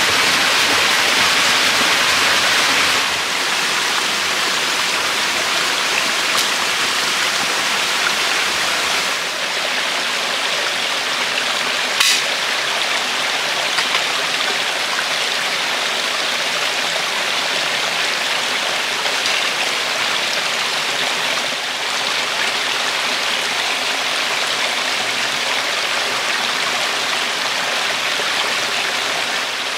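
Shallow rocky stream running, a steady rush of water, with one short sharp click near the middle.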